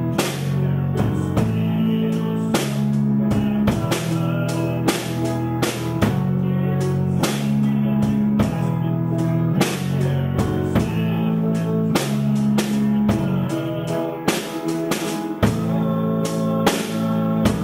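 Live band playing: held, droning guitar chords over a drum kit, with frequent drum hits and cymbal crashes.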